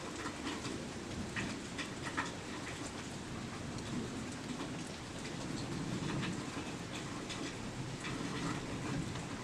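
Heavy thunderstorm rain falling steadily, with scattered sharp drop hits. Thunder rumbles low beneath it, swelling slightly around the middle.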